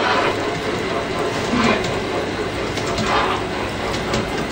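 Large-scale model train running on its track, a steady mechanical whirring and rattling of its motor gearing and wheels, louder for a moment now and then.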